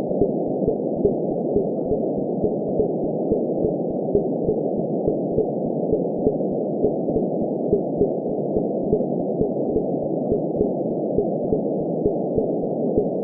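Heartbeat in a steady lub-dub rhythm, soft low thumps about two a second, over a continuous muffled whoosh of womb ambience.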